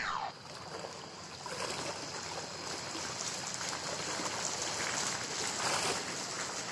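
Steady rushing noise like running water, an even wash that holds on after a brief falling tone at the very start.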